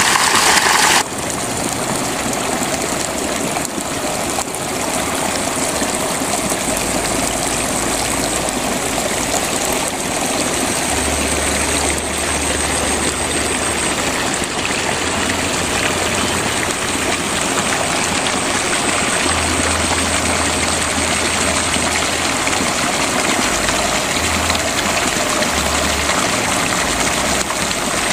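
Steady rush of running water, as in the channels between flooded rice-paddy terraces, with a few low rumbles here and there.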